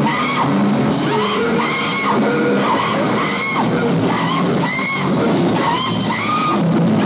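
Live rock band playing loud, with distorted electric guitar and a woman's vocals through the PA. A high, squealing rising-and-falling figure repeats about twice a second.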